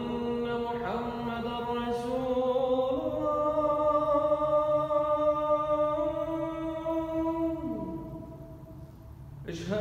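A man's voice reciting the adhan, the Islamic call to prayer, in the Makkah style: one long drawn-out melodic phrase that steps up in pitch, falls away near the end, then a short breath before the next phrase begins.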